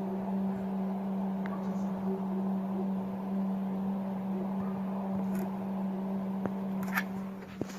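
A steady low drone with a stack of overtones, holding one pitch throughout. It is one of the unexplained 'strange sounds from the sky', which witnesses liken to a trumpet or aircraft turbines. A few faint ticks come near the end.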